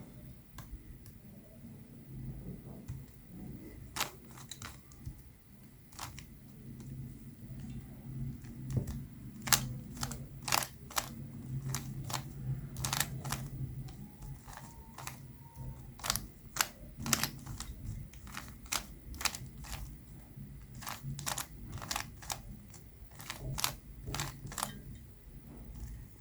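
Plastic Rubik's Cube being turned by hand: irregular sharp clicks and clacks as the layers snap round, over a steady low hum.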